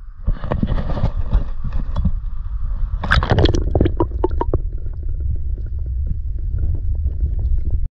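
Muffled water noise heard with the microphone underwater: a steady low rumble of water moving over the camera, with a burst of gurgling and splashing about three seconds in.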